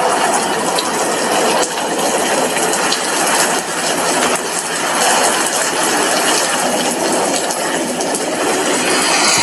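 Steady rain falling on a glass window: a dense, even hiss with many separate drops tapping on the glass.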